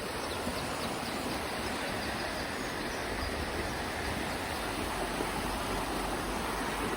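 Steady rush of a river's flowing water, with a low rumble joining about three seconds in.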